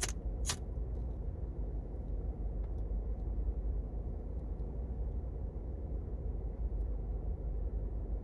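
Clipper flint pipe lighter struck twice, about half a second apart, while a pipe is being lit. A steady low rumble of the car cabin runs underneath.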